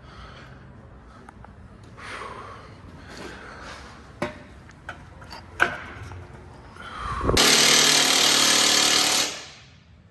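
Scattered clicks and clanks of tools and parts, then an impact wrench running in one steady burst of about two seconds, the loudest sound here, as fasteners are run during a downpipe install.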